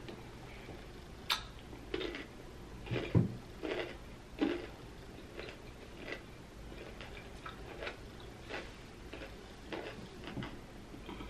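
Close-up chewing of a mouthful of pickled yellow radish (danmuji): a string of short crunches, loudest in the first few seconds, then softer chews toward the end.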